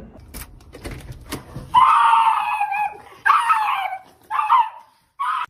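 A dog giving four high-pitched, screaming cries: two long ones about a second each, then two short ones near the end, after a few faint clicks.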